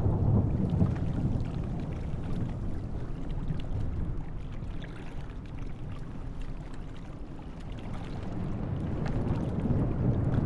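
Airbus helicopter's rotor and turbine noise, a low rumble that eases somewhat in the middle and grows louder again near the end.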